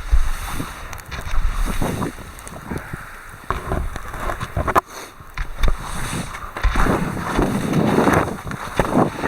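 Wind rushing over a skier's microphone during a run, in uneven gusts with deep rumbling buffets.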